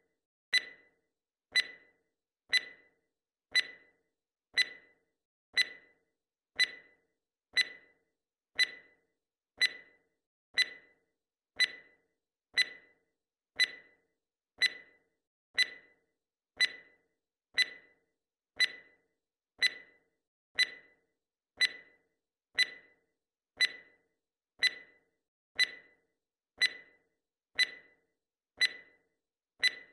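Timer's clock-tick sound effect: one short, sharp tick each second, each dying away quickly, marking off the seconds as the count goes up.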